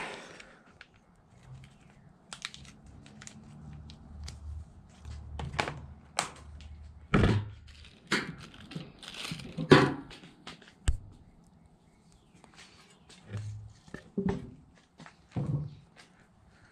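Scattered clicks, knocks and rustling as small engine parts and hand tools are handled on a workbench. A plastic parts bag crinkles while a new part is taken out, and metal tools clack as they are picked up and set down, with a few louder knocks.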